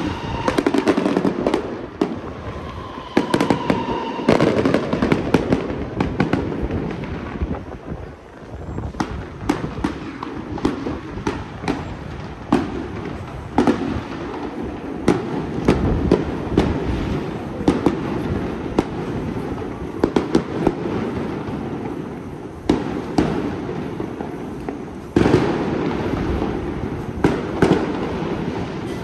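Firecrackers going off over and over: many sharp bangs in irregular rapid runs, with a continuous din underneath.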